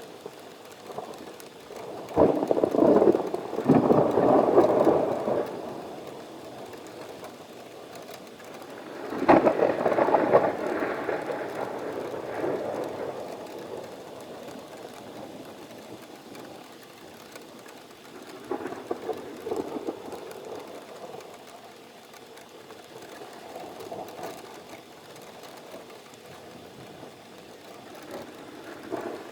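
Thunderstorm: steady rain with rolling thunder. Two loud peals, one about two seconds in and one about nine seconds in that starts with a sharp crack, then a fainter rumble around halfway through.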